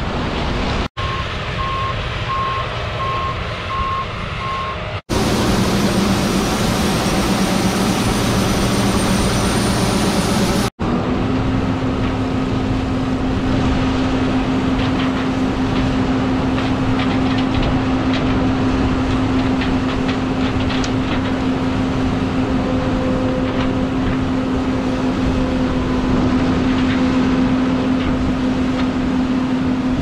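Combine harvester and farm machinery running steadily while harvesting corn, broken by abrupt cuts between takes. A repeated beep sounds for a few seconds near the start, and a steady humming tone holds through the last two-thirds.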